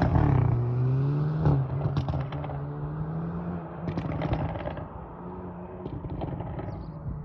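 Hyundai i30 N Performance's turbocharged in-line four-cylinder engine off the throttle after a hard pull: its note falls away and settles on overrun while the exhaust fires sharp crackles and pops, in clusters about two and four seconds in and again near the end.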